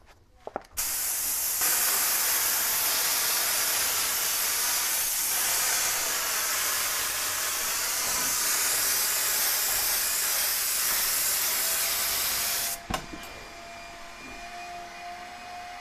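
Compressed-air spray gun spraying adhesive: a loud steady hiss that starts about a second in and cuts off sharply near the end when the trigger is released, followed by a much fainter steady hum.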